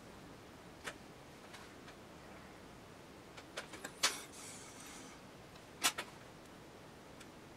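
Sparse small clicks and taps of watchmaking tools and the plastic movement holder being handled on the bench. The two sharpest clicks come about four and six seconds in, the first followed by a brief scraping hiss.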